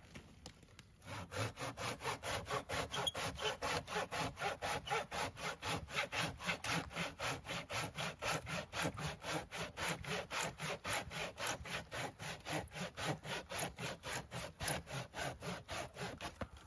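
Corona 18-inch RazorTOOTH pruning saw cutting through an old branch about four and a half inches thick that is hard in the middle, in fast, even back-and-forth strokes. The sawing starts about a second in and stops just before the end as the cut goes through.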